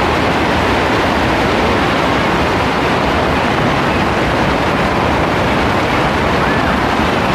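Heavy rain falling, a loud steady hiss without a break.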